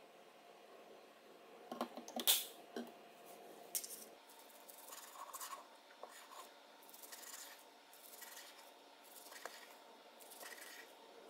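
Chef's knife slicing kimbap rolls on a plastic cutting mat: short crisp rasping strokes about once a second as the blade saws through the dried seaweed wrap and rice. A few sharp knocks come about two seconds in.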